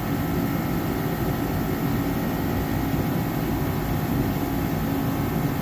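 Garage heater running with a steady, even drone.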